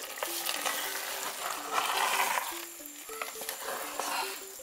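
Egg and pumpkin-leaf sauce sizzling in an aluminium pot as a wooden spoon stirs it, the hiss swelling in patches. A simple background melody of single held notes runs underneath.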